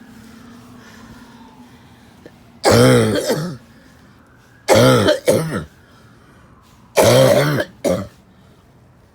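A person coughing loudly and harshly in three bouts about two seconds apart. The second and third bouts are each a double cough.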